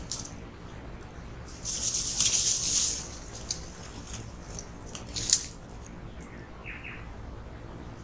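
Capuchin monkeys scampering through dry leaf litter, rustling and crunching the leaves loudly for about a second and a half. A single sharp snap comes about five seconds in.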